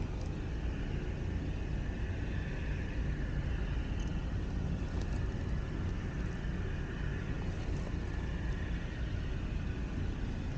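Steady low rumble of outdoor background noise with a faint, steady high hum running through it.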